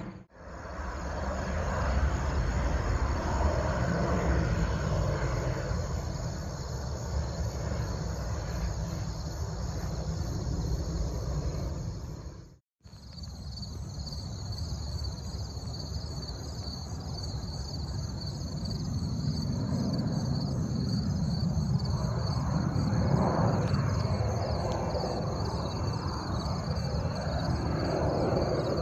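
Distant jet airliner engines, a steady rumble that swells to a louder pass about two-thirds of the way in. The sound breaks off twice at edits, briefly going silent.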